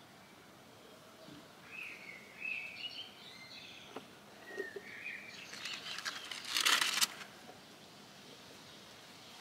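Small birds chirping in short high phrases over a quiet outdoor background, with a brief loud rustle about two-thirds of the way through.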